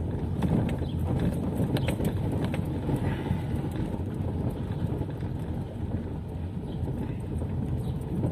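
Car driving, with a steady low engine and road rumble and occasional small rattles and clicks.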